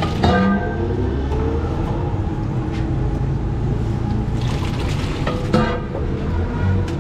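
Steel serving bowl clanking against a large steel cooking pot twice, about half a second in and again near the end, each strike ringing on for a moment. Between them, boiled chickpeas slide and splash into the gravy, over a steady low rumble.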